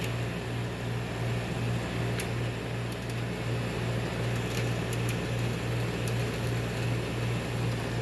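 2001 Carrier window air conditioner running in cooling mode: a steady blower rush over a strong, even low hum.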